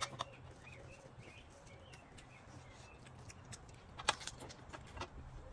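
Small birds chirping faintly in the background, with a few sharp clicks and clinks of a spoon and fingers on metal plates during a meal, the loudest about four seconds in.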